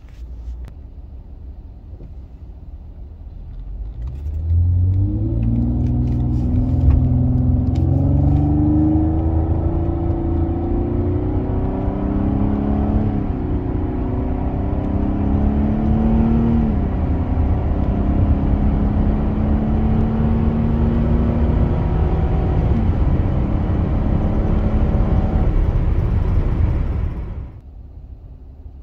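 2017 Nissan Maxima's 3.5-litre V6, heard from inside the cabin: a low rumble rises about four seconds in to loud high revs near 4,000 rpm, the pitch creeping upward in small steps, then drops away sharply near the end. The high revs are a symptom of its failing CVT transmission, for which the dealer found a judder code.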